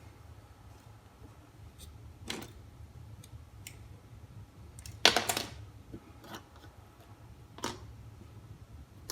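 Small turntable parts being handled during disassembly: scattered light clicks and taps of small metal and plastic pieces, with a short clatter about five seconds in, over a low steady hum.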